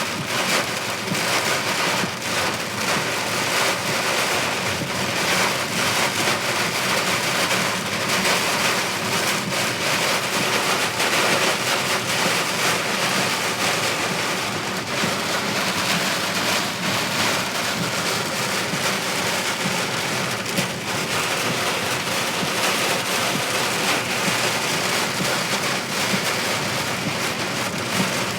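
Heavy wind-driven rain pouring onto a car, a steady dense hiss heard from inside the car.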